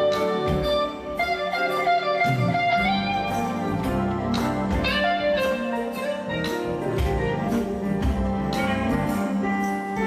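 Live band playing a relaxed instrumental groove at a soundcheck: piano or keyboard chords over bass and drums.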